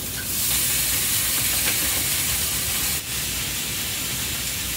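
Food sizzling in a frying pan on a gas stove: a steady frying hiss that grows louder about half a second in and eases a little about three seconds in.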